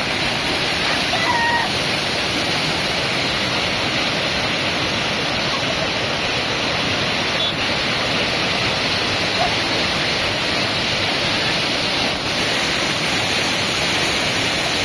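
Muddy floodwater rushing steadily over the edge of a concrete ford and churning below it.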